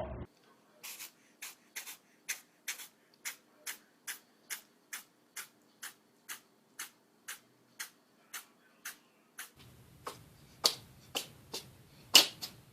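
A cat sneezing in a long fit of short, sharp little sneezes, about two a second. Near the end come a few louder sneezes over a low background rumble.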